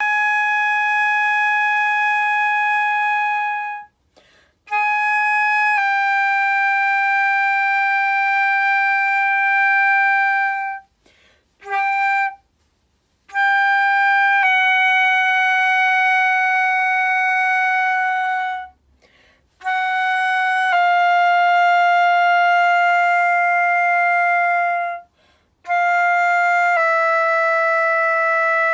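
Flute playing a long-tone exercise. Each phrase is a short note that drops a semitone into a held tone of about four seconds, and each phrase starts a step lower than the last, with brief pauses for breath between.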